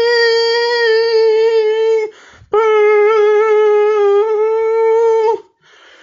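Mock emergency-alert attention tone: a loud, steady, buzzy horn-like tone that breaks off about two seconds in, returns half a second later, and stops about a second before the end.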